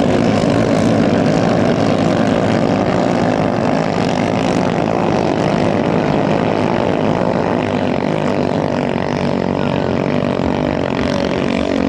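Small 6–7 hp engines of racing ketinting longtail boats running flat out: a loud, steady drone.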